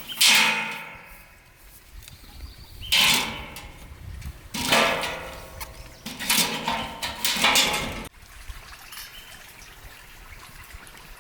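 Water splashing or sloshing in five loud surges, each fading off, until a sudden cut about eight seconds in leaves only a faint steady hiss.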